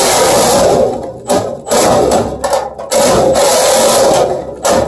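Makita reciprocating saw cutting through the triple-thickness sheet metal at the bottom of a furnace cabinet. It runs loud in bursts, easing off briefly about a second in, again near the middle, and near the end.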